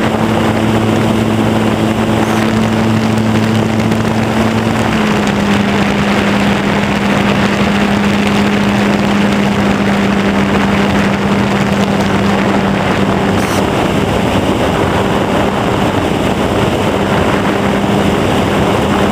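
RC Super Cub model plane's motor and propeller heard from the onboard camera: a steady drone over loud wind rush. Its pitch drops slightly about five seconds in as the throttle is eased back for the landing.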